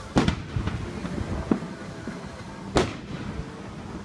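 Aerial firework shells bursting: two loud booms about two and a half seconds apart, with smaller bangs between them.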